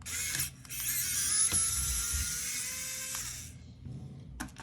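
A small electric screwdriver's motor whirring as it backs a Phillips screw out of a PS5 controller's shell: a short burst, a brief pause, then about three seconds of steady high whine, its pitch rising slightly.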